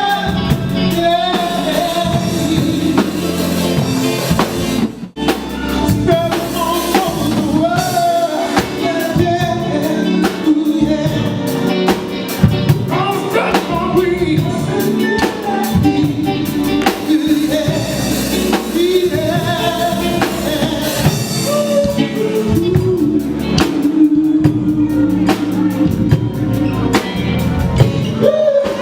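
Live band playing a song with keyboards, electric guitar and drum kit under a singer's lead vocal, with a short break in the music about five seconds in.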